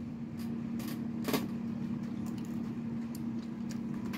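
A few computer mouse clicks, the clearest two about a second in, over a steady low hum.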